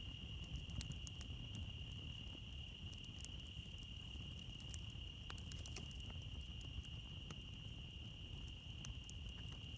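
Crickets trilling steadily in one high tone, with a campfire crackling in scattered small pops and snaps.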